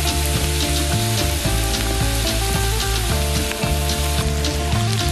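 Gopchang and makchang intestines sizzling and crackling in a hot cast-iron skillet on a wood-burning stove, with a steady spatter of fine pops. Background music with a bass line plays underneath.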